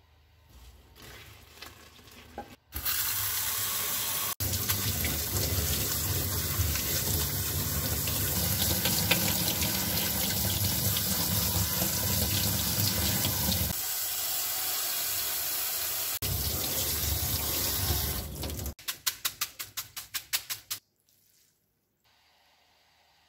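Kitchen tap running full onto cooked noodles in a stainless mesh strainer in a steel sink as they are rinsed by hand in cold water: a steady loud rush of water. Near the end the water stops and there is a quick rhythmic run of splashes, about six a second, before it goes quiet.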